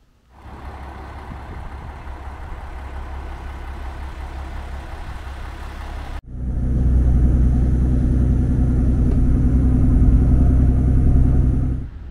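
A motor vehicle running: a steady low rumble, then, after an abrupt cut about six seconds in, a louder steady engine hum with a faint high-pitched whine that stops near the end.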